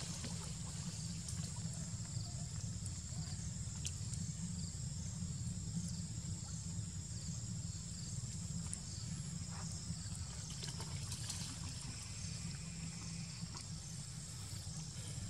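Steady outdoor ambience: insects buzzing in a high, even drone over a steady low rumble, with a few faint clicks.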